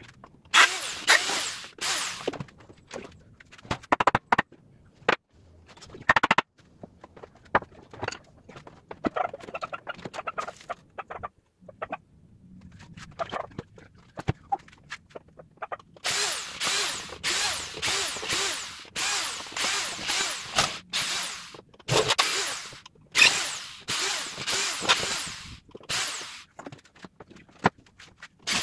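A flat metal blade scraping and hacking glued foam and fabric off a chipboard panel, in quick repeated strokes about two a second. A short flurry comes near the start and a long run of strokes comes in the second half, with loose knocks and handling between.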